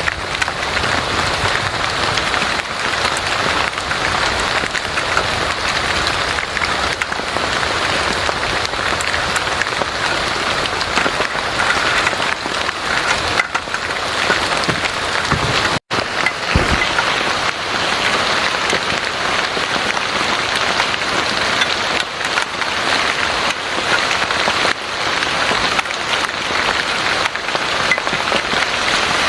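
Heavy rain falling, a steady dense hiss that cuts out for an instant about sixteen seconds in.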